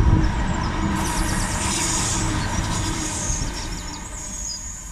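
A passing train: a steady rumble, with a high whine coming in during the second half.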